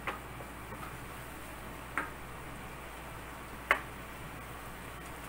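Ground pork frying in a pan: a low steady hiss, broken by three sharp clicks from the pan, near the start, about two seconds in and near four seconds in, the last the loudest.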